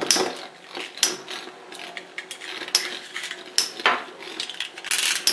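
Two metal-wheeled Beyblade spinning tops whirling in a plastic stadium, with irregular metallic clinks and clacks as they knock into each other and the stadium floor.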